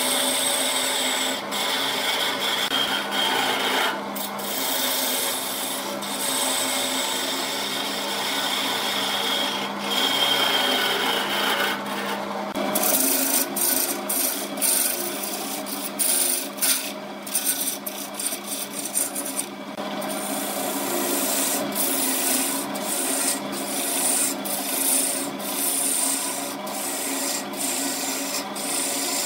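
BURT wood lathe running with a steady motor hum while a hand-held turning chisel cuts the spinning wooden vase blank: a continuous scraping of steel on wood with shavings tearing off. In the second half the cut keeps breaking off for an instant as the chisel is eased on and off the wood.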